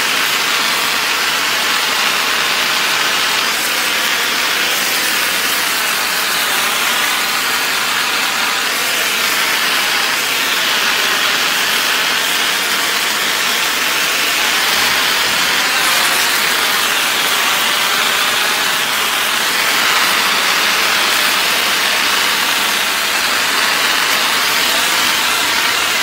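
Pressure washer water jet blasting paver bricks and concrete: a loud, steady hiss whose tone swells and dips every few seconds as the wand sweeps across the surface.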